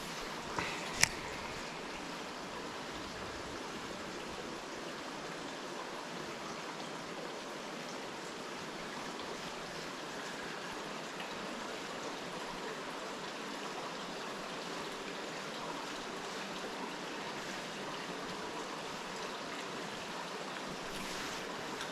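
River water running steadily over rocks, with two short sharp knocks about a second in, the second much louder.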